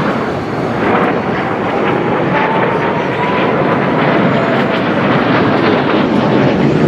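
Kawasaki T-4 jet trainers flying overhead in an aerobatic display: a steady jet-engine roar, with a faint whine that slowly falls in pitch as an aircraft passes.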